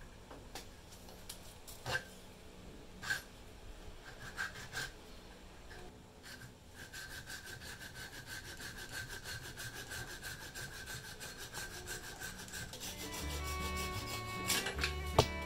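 A small fine-toothed hand saw cutting a small wooden block held in a bench vise, in quick, even back-and-forth strokes that start about halfway in. Before that there are a few scattered clicks and knocks, and music comes in near the end.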